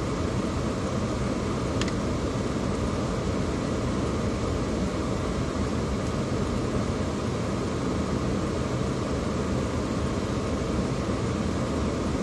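Steady road noise and engine hum of a car being driven, even throughout with no changes in speed or pitch.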